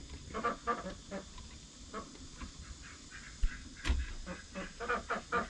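Chickens clucking and squawking with many short, repeated calls, with a couple of sharp knocks a little past the middle.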